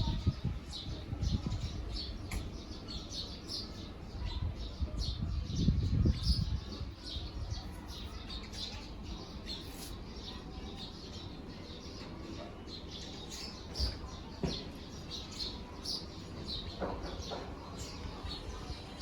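Small birds chirping again and again in short high notes. Low rustling and bumping comes twice, briefly at the start and again about five to six seconds in.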